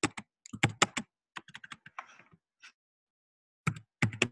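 Typing on a computer keyboard in quick runs of keystrokes, then a pause of about a second before a few more keys near the end.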